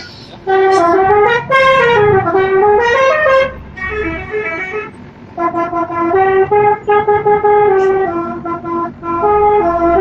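Telolet multi-tone horn playing a melody of stepped notes that go up and down in pitch, stopping about four seconds in and then playing again.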